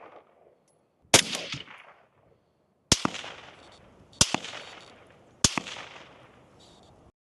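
CZ Bren 2 rifle firing 5.56 M193 rounds, four single shots about one and a half seconds apart, each followed by a trailing echo.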